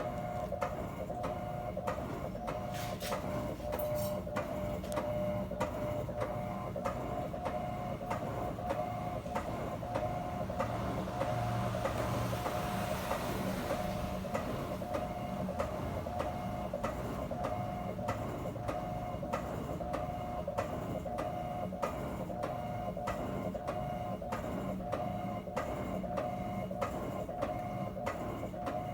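Electrolux 12 kg washing machine running, with a steady mechanical whine and regular clicks about twice a second.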